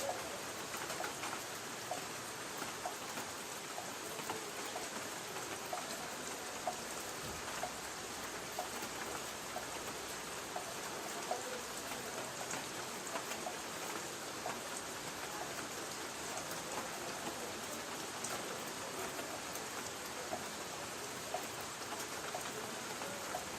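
Light rain falling on a tin roof: a steady hiss with many small, scattered drop taps on the metal.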